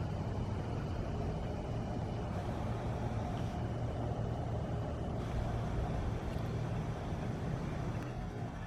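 Steady low rumble of outdoor background noise at night, with a faint higher whine over it.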